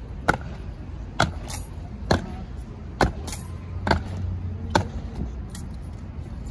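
Goose-stepping honour guards' boots stamping on granite paving in unison: a sharp stamp about every second, six in all, stopping about five seconds in as they halt.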